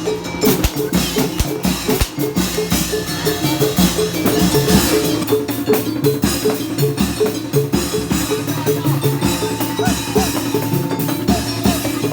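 Obrog folk ensemble music: drums and percussion playing a steady, busy beat over held tones.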